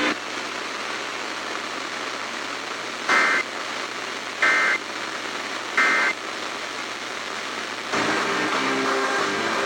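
Radio static hiss broken by three short two-tone digital data bursts, each about a third of a second and about a second apart: the EAS end-of-message code that closes an emergency alert. Near the end the station's music comes back in over the hiss.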